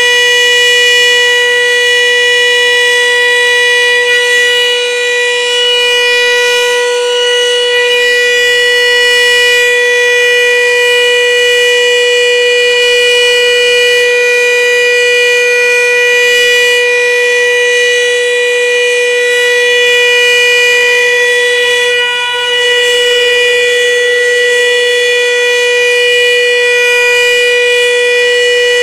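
Volunteer fire station's alarm siren sounding one loud, steady tone that holds its pitch without rising or falling: a commemorative signal. It dips in loudness briefly once, about three quarters of the way through.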